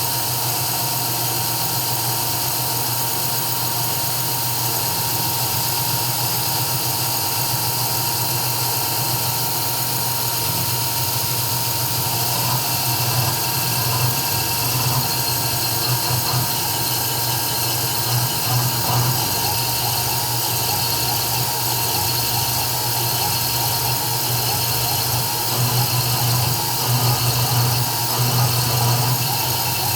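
CNC 3040 engraving machine at work: its spindle gives a steady, high-pitched whine, with a lower hum from the stepper-driven axes underneath. The hum swells in stretches, around the middle and again near the end, as the cutter moves through the engraving.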